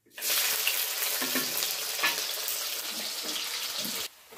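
Sliced onions going into hot oil in a steel kadai and sizzling loudly, stirred with a spatula. The sizzle starts suddenly and drops sharply near the end.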